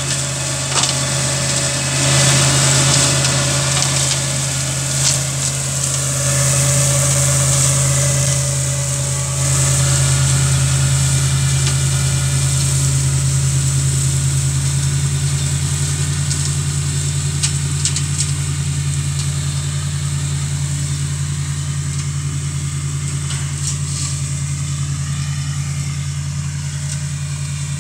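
Tractor engine running steadily while driving a STARK KM 175H PTO flail mower through tall grass, the mower's spinning flail rotor adding a high hiss and a few sharp ticks. The sound slowly fades in the second half as the tractor moves away.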